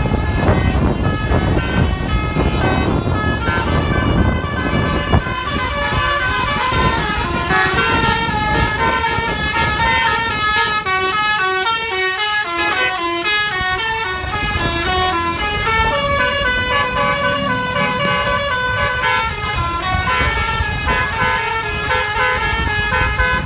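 Bus 'telolet basuri' multi-tone horns playing long runs of quick stepping notes, several tones at once, over the low rumble of a bus engine. The horn runs stop near the end.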